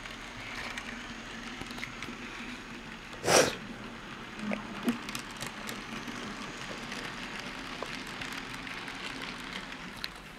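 N gauge model diesel locomotive running round the track, its small electric motor giving a faint steady whirr with light ticking from the wheels. About a third of the way in a single short, loud puff of noise stands out above it.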